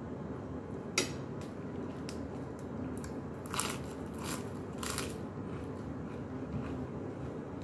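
Crisp lettuce leaves crunching as a lettuce wrap is bitten into, three crunches in quick succession around the middle. A sharp click about a second in.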